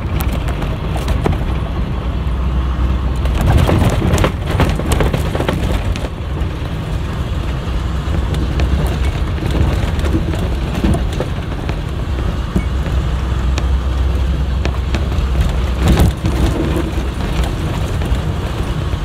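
Converted school bus driving over a rutted dirt road: a steady engine and tyre rumble, with rattles and knocks as it jolts over bumps, the strongest a few seconds in and again near the end.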